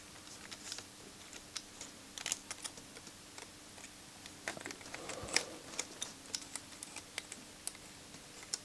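Light, irregular clicks and taps of small plastic and metal parts being handled as a CD player's laser pickup is fitted into its mechanism.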